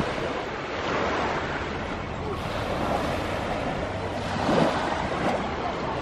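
Small waves lapping and washing up onto a sandy shore, a continuous soft wash rising and falling in gentle swells.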